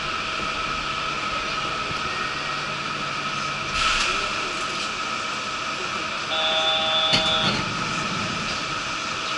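Yurikamome rubber-tyred guideway train heard from inside the front of the car: a steady electric hum made of several fixed tones. A brief louder rush comes about four seconds in, and a short cluster of higher steady tones with a click sounds about seven seconds in.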